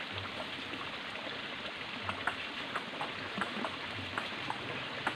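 Table-tennis ball clicking off bats and table in a rally: sharp ticks in quick pairs, bounce then hit, coming about every half second from about two seconds in. A steady hiss lies underneath.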